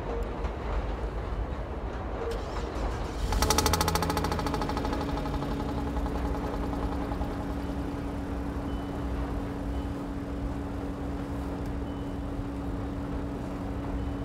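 Audi A6 Quattro engine cold-starting in freezing weather: it fires about three seconds in with a brief loud flare, then settles into a steady idle.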